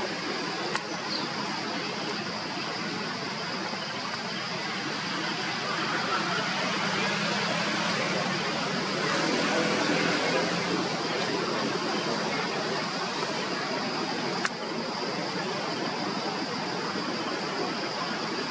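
Steady rushing outdoor ambience with a constant high-pitched tone above it, a little louder in the middle. A sharp click comes about a second in and another about fourteen seconds in.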